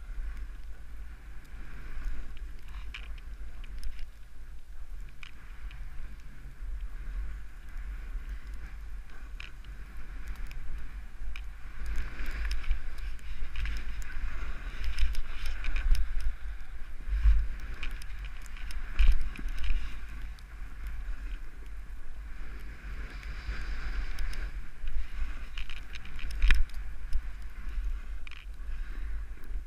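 Wind buffeting an action camera's microphone as its wearer rides fast downhill through snow, over a hiss of snow sliding underneath and scattered small clicks and knocks. The hiss and rumble swell in the middle and again near the end.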